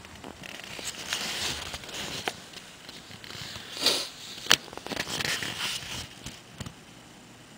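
Rustling and crackling handling noise, with a few sharp clicks and knocks, the loudest a click about halfway through.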